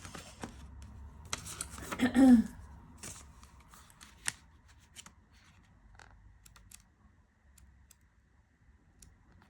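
Paper handling: the pages of a tarot deck's guidebook being turned and rustled to find a card's entry, with the loudest rustle about a second and a half in and scattered light clicks and taps after it.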